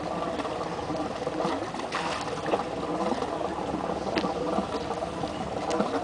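Water sloshing and splashing against a small boat, over a steady low rumble.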